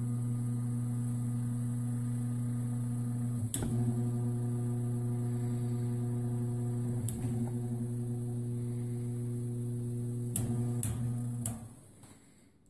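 Repaired Patton air-circulator fan motor, freshly lubricated with new armature spacers, running without its blade with a steady electrical hum. The switch clicks at intervals as the speed settings are stepped through. A few quick clicks come near the end, then the motor is switched off and the hum dies away. It runs properly: the repair works.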